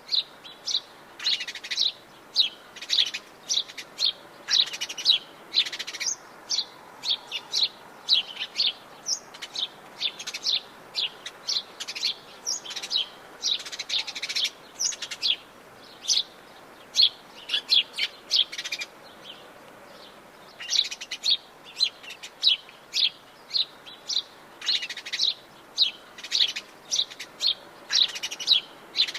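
Birds chirping and calling in Atlantic Forest: rapid, short, high-pitched chirps several times a second, pausing briefly about two-thirds of the way through.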